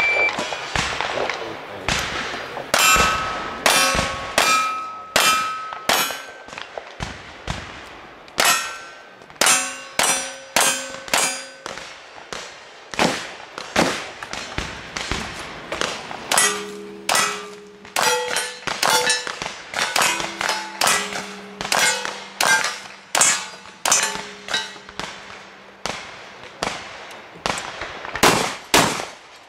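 A shot timer's start beep, then a cowboy action shooting string: dozens of gunshots in quick succession, most followed by the ring of steel targets being hit, with a couple of short pauses between guns.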